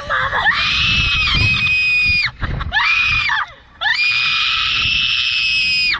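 A girl screaming on a slingshot ride: long, high-pitched screams held steady, breaking off briefly twice.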